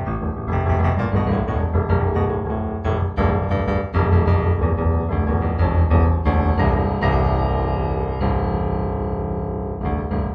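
Solo piano music, improvised, with notes struck in quick succession and a few chords left to ring and fade.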